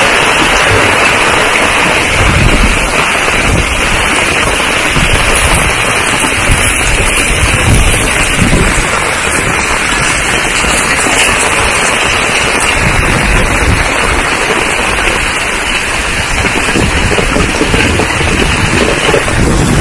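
Heavy rain pouring down, a loud dense hiss that never lets up, with low rumbles every few seconds.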